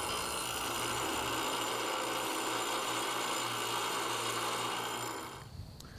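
Grinding wheel running with steel held against it for a spark test: a steady grinding noise over a low motor hum, which stops about five and a half seconds in.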